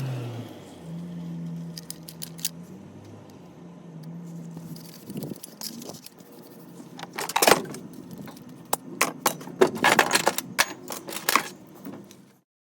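Metal clinking and rattling, with a run of sharp knocks and clinks in the second half over a low steady hum early on; the sound cuts off just before the end.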